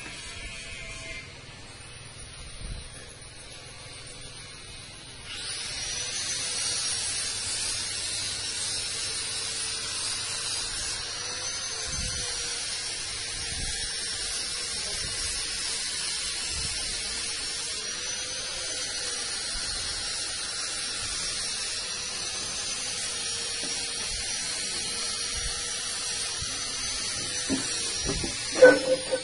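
A steady mechanical whine, high-pitched with a faint lower tone, starts about five seconds in. Its pitch wavers slightly as it runs. A few sharp knocks come near the end.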